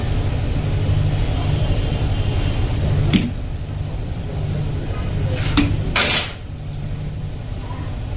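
Metal tools clanking against engine parts: a sharp clank about three seconds in, another near five and a half seconds, then a short scraping rattle, over a steady low hum.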